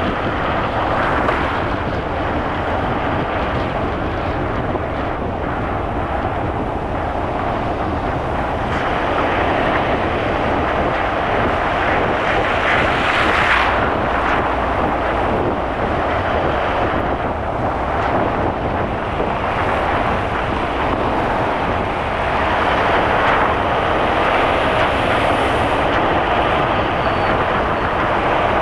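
Steady road noise of a car being driven: tyre roar, engine and wind blended into one continuous rush, swelling briefly a few times.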